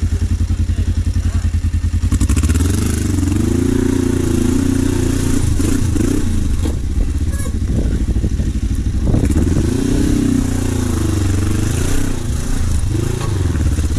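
Kawasaki KLE500's parallel-twin engine chugging at low revs, then from about two seconds in revving up and dropping back again and again under load as the motorcycle climbs over rocks.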